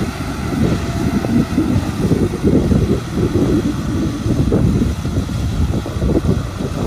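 Kubota M6040SU tractor's four-cylinder diesel engine running under load as its rear rotary tiller churns wet paddy mud: a loud, uneven low rumble.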